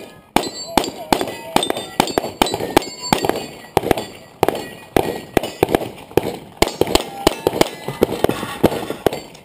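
Competition pistol fired in a rapid string of single shots, about three a second, with some hits ringing on steel targets.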